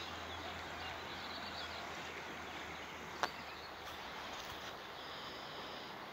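Outdoor evening ambience: a steady hiss with faint high chirps, and one sharp click about three seconds in.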